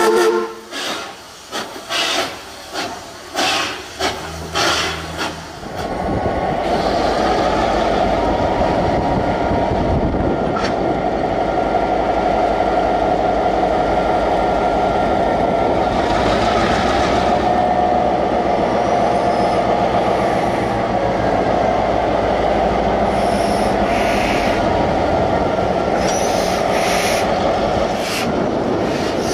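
Steam locomotive puffing out sharp bursts of steam, about two a second, for the first few seconds. Then a diesel-electric locomotive's engine runs steadily close by, with a low rumble of rail and wheel noise.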